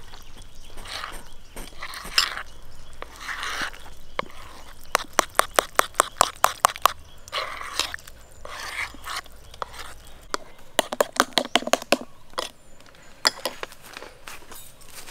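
Knife chopping on a cutting board: two quick runs of sharp taps, about five a second, with crunchy scraping between them.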